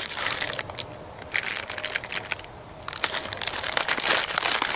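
Plastic MRE ration packets crinkling and rustling as they are handled and pulled out of the meal bag, in three bouts with short pauses between them.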